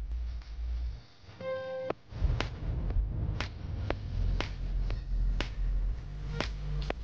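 Background music with a deep bass and a sharp clap on the beat, about once a second. A little after a second in, the bass drops out briefly under a single held note, then the beat comes back.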